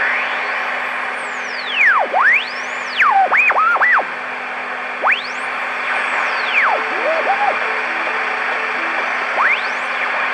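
Marconi 2004 seven-transistor AM radio's speaker giving a steady hiss of static with a low hum underneath, crossed by several whistles that sweep up and down in pitch as the dial is tuned. Little comes through besides the whistles: the owner finds the set deaf and reckons something is wrong with it.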